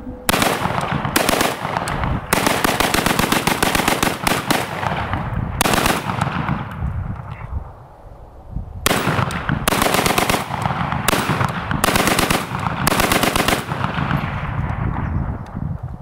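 Palmetto State Armory AK pistol in 7.62x39 bump fired in rapid strings of shots, several bursts with a pause of a couple of seconds near the middle.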